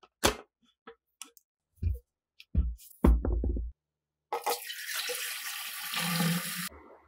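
Clicks and knocks of hands working the metal latch on the end of a metal military carrying tube. Then, about four seconds in, clear liquid is poured from a glass beaker into the tube in a steady stream for a little over two seconds, stopping suddenly.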